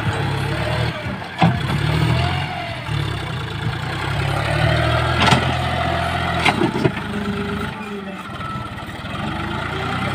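John Deere 5036D tractor's three-cylinder diesel engine running steadily under load as its front loader digs into sand and soil, with a few sharp clunks from the loader and bucket.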